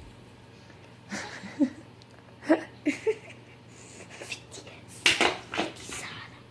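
Short wordless vocal sounds from a toddler, a few brief babbles and breathy noises in three clusters, over a faint steady hum.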